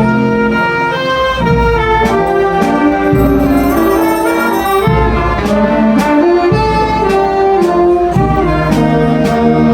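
Filarmônica wind band playing a melodic piece, brass and saxophones holding notes over a bass line, with a few sharp percussion strokes.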